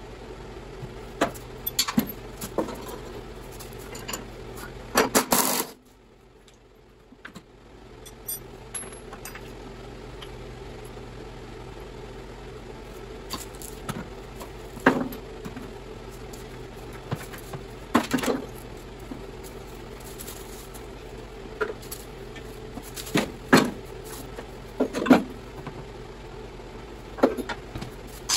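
Scattered metallic clinks and knocks as tools and steel parts are handled on a riding mower's cutting deck, with a louder clatter about five seconds in, over a steady low hum.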